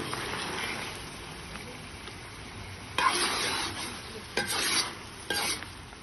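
Ground meat with chiles and onion sizzling in a metal pan, a metal spoon stirring and scraping through it. There are three louder scrapes of the spoon in the second half.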